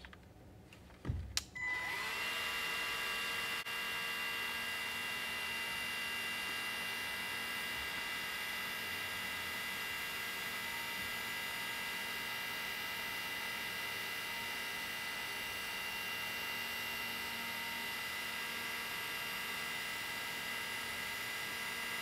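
DeWalt cordless heat gun switched on after a couple of clicks about a second in: its fan spins up with a short rising whine, then runs steadily, blowing hot air with an even hiss and a steady whine to shrink heat-shrink tubing over a crimped cable lug.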